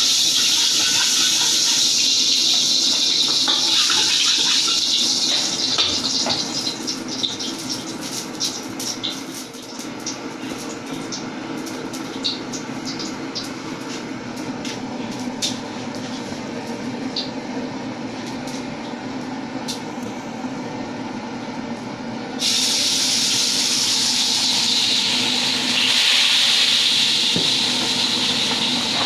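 Stovetop cooking noise: a steady hiss, then a quieter stretch of scattered pops and crackles, then a louder hiss that returns abruptly about three-quarters of the way through.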